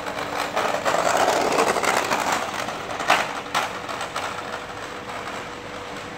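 Child's scooter rolling over an asphalt road: a rough rolling rattle, loudest for a second or so as it passes close, with two sharp clicks about three seconds in and a faint steady hum underneath.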